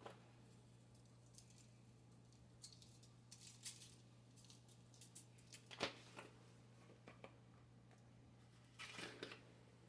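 Faint kitchen handling sounds from seasoning raw pork chops: scattered light clicks and rustles of seasoning containers being picked up and shaken over the meat, with one sharper knock about six seconds in and a short rustle near the end, over a low steady hum.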